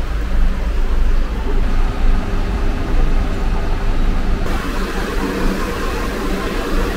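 Traffic noise with a bus engine running, a steady low rumble. The sound changes abruptly about four and a half seconds in.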